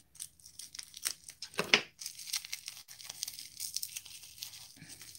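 Thin plastic shrink-wrap crinkling and tearing as it is cut and pulled off a sealed pair of acrylic powder jars, in a run of short crackles with one louder crack just under two seconds in.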